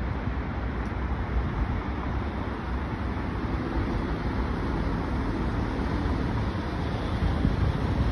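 Steady road traffic noise on a city street, with a city bus driving past.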